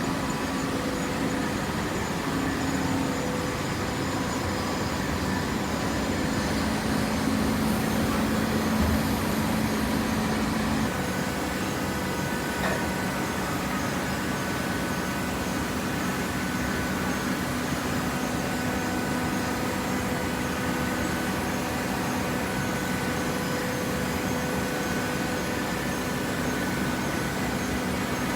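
Hydraulic baler's electric motor and pump running with a steady mechanical hum. The hum shifts slightly in pitch about eleven seconds in.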